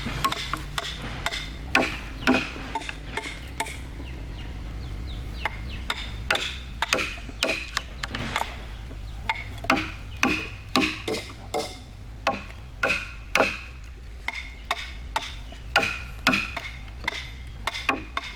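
Hammer blows on wood, sharp irregular strikes each with a short ring. They are sparse at first and come about twice a second from about six seconds in.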